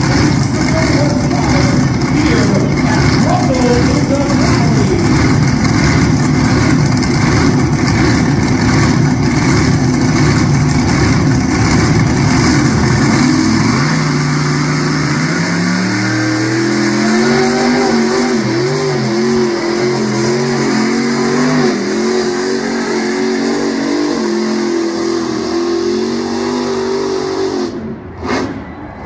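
A pulling truck's engine running hard under load. About halfway through its pitch climbs and then holds high, wavering up and down, before the sound cuts off near the end.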